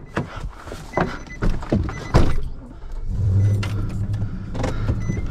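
Pickup truck door and cab knocking and clunking as someone climbs into the driver's seat, then the truck's engine running with a steady low hum from about three seconds in.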